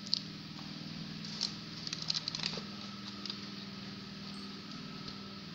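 Light clicks and crinkles of a clear plastic blister tray of mini toys being handled, a handful of small ticks scattered through, over a steady low hum.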